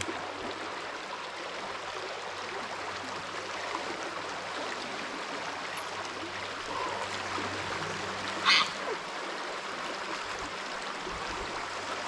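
Shallow river running steadily over a gravel bed, an even rushing wash of water. About eight and a half seconds in there is one brief, louder noise.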